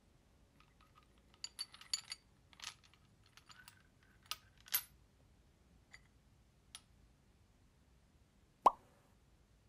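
Small glazed ceramic chopstick rests clinking and knocking against each other as they are sorted through by hand in a wicker basket: a scatter of light clinks, with one sharper knock near the end.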